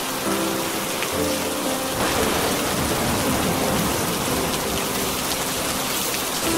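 Steady rain, with soft, held music notes underneath. The rain grows a little louder about two seconds in.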